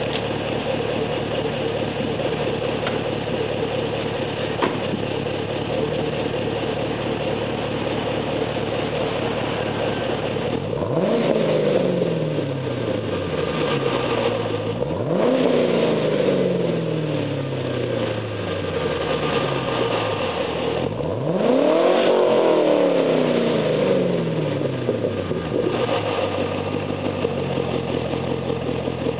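Chevrolet Camaro fitted with a cold air intake and Borla S-Type exhaust, idling steadily at the tailpipes, then revved three times, each rev a quick rise in pitch that falls back to idle. The third rev, about three quarters of the way through, is the loudest and highest.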